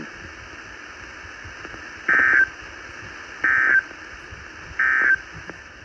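Emergency Alert System end-of-message data bursts: three short, identical warbling digital tone bursts, about a second and a half apart, with steady broadcast hiss between them. They signal the end of the severe thunderstorm warning message.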